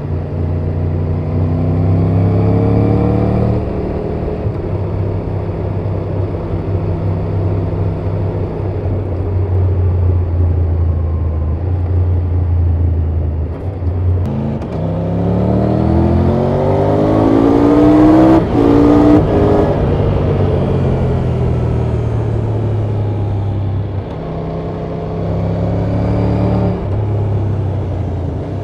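2024 Triumph Tiger 1200 GT Pro's 1160 cc inline-three engine through its stock exhaust, pulling up through the revs, cruising, then pulling again. The loudest, highest climb comes about two-thirds of the way through, and a shorter pull follows near the end.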